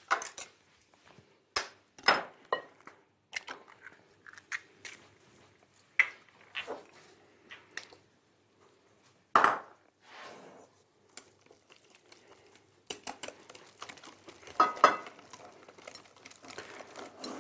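Utensils clinking and tapping against a glass mixing bowl, with a sharper knock about nine seconds in. From about thirteen seconds in, a metal whisk beats batter in the glass bowl with rapid, dense clicking.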